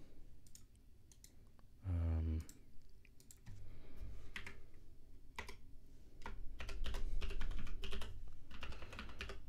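Keystrokes on a computer keyboard: irregular clicks that come thicker and louder in the second half, as a terminal command and then a password are typed. A brief low hum about two seconds in.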